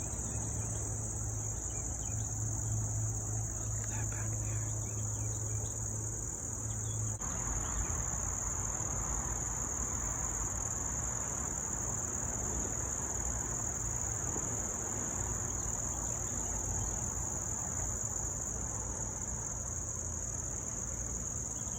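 Steady chorus of crickets, a continuous high-pitched trill. A low steady hum sits under it for the first seven seconds or so, then stops.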